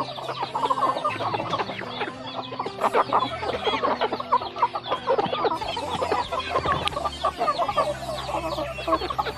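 A flock of chickens clucking and chattering, many short overlapping calls from several birds at once with no pause.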